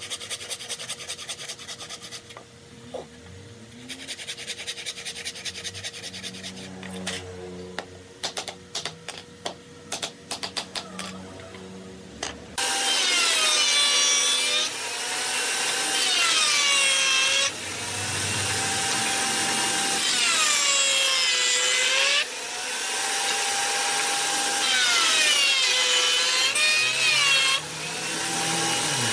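A handsaw cuts into the mitred corner of a wooden frame in quick back-and-forth strokes, with a few knocks. Then a table-mounted router starts up abruptly and is much louder, routing the edge of a board fed along a fence. Its whine sags in pitch each time the wood loads the bit and recovers when it frees.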